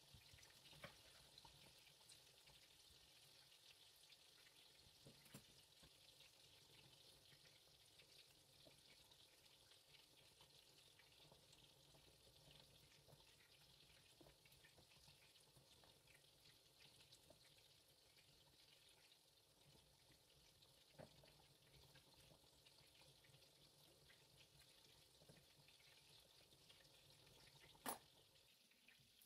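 Very faint, steady sizzle of meat cutlets frying in a pan, with a few soft knocks of a knife on a wooden cutting board and a sharper click near the end.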